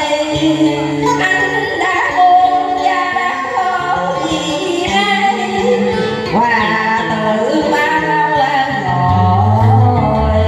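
A woman singing a Vietnamese song into a microphone over a backing track with a steady bass line.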